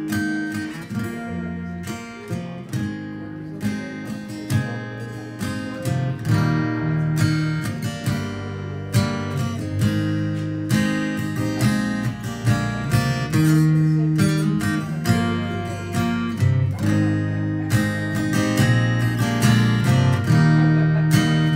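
Acoustic guitar strummed in a steady rhythm with an electric bass holding low notes under it: a song's instrumental intro, with no singing yet.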